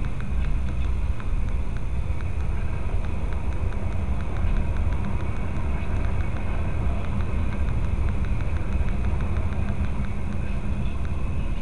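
Freight train of tank cars rolling slowly past, heard from inside a car: a steady low rumble with faint light clicks.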